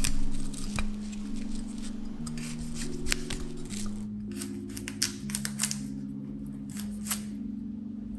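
Kitchen knife cutting through broccoli stems on a wooden cutting board, a series of short crisp cuts, over soft background music of held notes.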